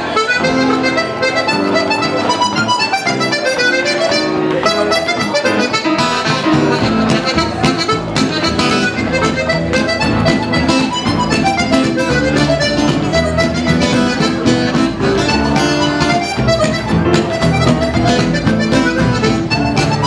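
Button accordion playing a French Canadian folk tune, accompanied by acoustic guitar, upright bass and piano.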